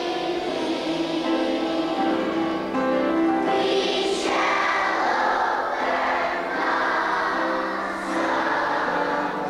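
A choir singing, holding long notes.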